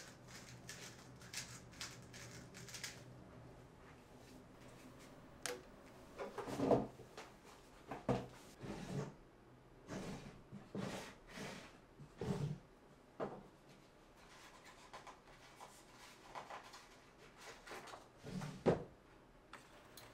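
A series of irregular knocks, thuds and rubs from objects being handled, with a louder thud near the end.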